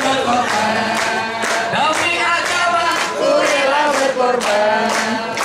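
A group of voices singing a melody together, as vocal music.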